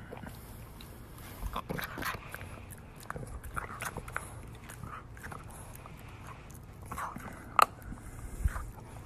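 A dog gnawing on a hard chew stick: irregular crunching and scraping of teeth on the chew, with scattered clicks and one sharp click about three-quarters of the way through.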